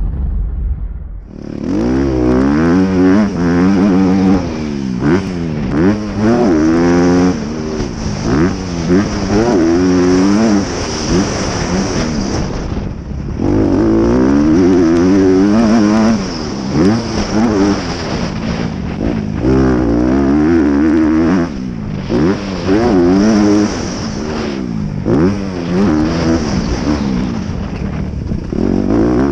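Honda CRF250R single-cylinder four-stroke motocross engine ridden hard on a dirt track, its revs climbing and dropping over and over with throttle and gear changes. Heard from a helmet-mounted camera.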